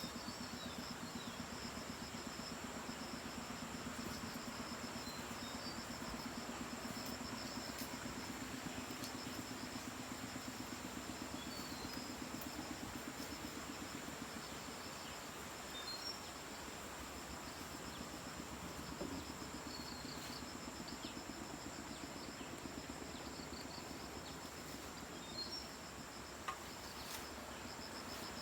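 Night insect chorus: crickets trilling steadily and high, with scattered short chirps over the top and a lower pulsing drone that fades out about halfway through.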